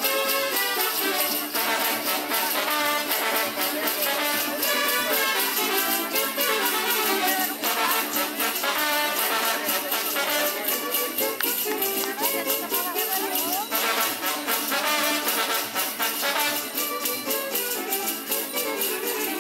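Brass band playing music for the Kurpites dance, with the jingling of the dancers' leg bells shaking in time to their steps.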